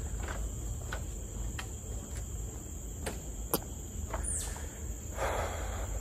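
A steady, high-pitched drone of rainforest insects, with sharp clicks now and then, the loudest about three and a half seconds in. A short falling whistle comes just after four seconds, and footsteps rustle on the trail near the end.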